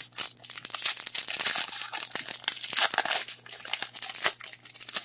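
Foil wrapper of a Pokémon card booster pack being torn open by hand, the foil crinkling and crackling as it rips.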